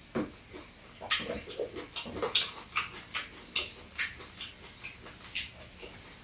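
Close-up eating sounds: wet chewing and lip smacks, a string of short sharp clicks at irregular intervals, about one or two a second.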